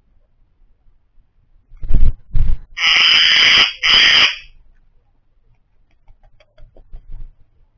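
Two low thumps, then a cat hissing twice: a hiss of about a second and a shorter one right after it.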